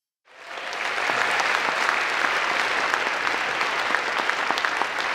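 Audience applauding: many hands clapping that start a moment in, swell within about a second and then hold steady.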